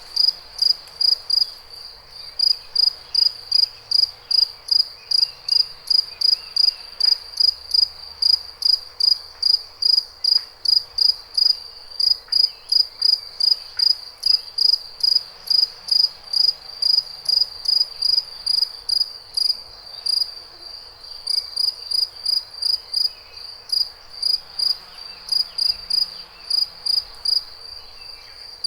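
A cricket chirping: short high-pitched chirps repeating steadily at about three a second, with a few brief pauses.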